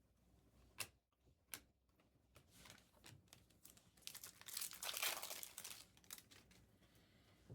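Foil trading-card pack wrapper crinkling as it is torn open, loudest about five seconds in, after a few light taps.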